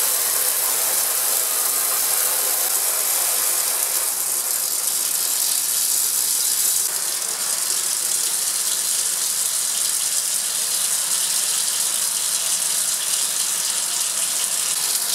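Steady loud gushing hiss of water rushing through a tap-water vacuum aspirator, pulling the vacuum for a glass-frit vacuum filtration.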